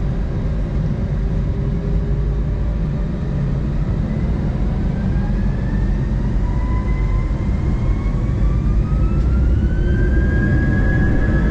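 Airbus A320's jet engines spooling up to takeoff thrust, heard from inside the cabin: a heavy steady rumble under a whine that rises in pitch from about four seconds in and levels off near the end.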